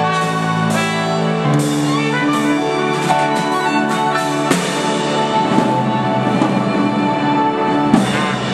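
Live small ensemble of trumpet, violin and keyboards playing a slow instrumental passage in long held notes, changing chord every second or two.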